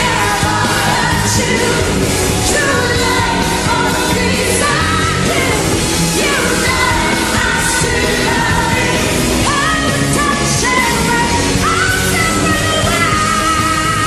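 A woman singing live into a microphone over band accompaniment, belting high notes that slide upward several times and settle into one long held note near the end.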